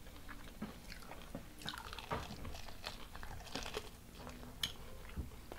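Close-up chewing and crunching of crispy Hot Cheetos-crusted deep-fried seafood, with irregular crisp crackles and wet mouth sounds.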